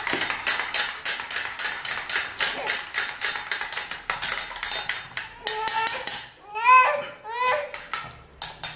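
A fast run of small clicks and clatter for about five seconds, then a toddler's high squeals that slide up and down, three in a row, the loudest near the end.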